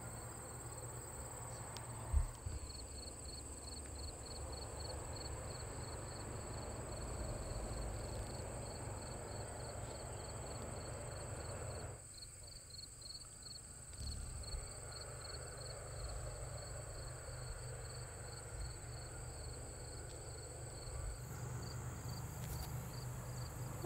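Insects chirping in the field: a quick, evenly pulsing chirp repeated several times a second over a continuous high trill, with a low rumble underneath and one brief thump about two seconds in.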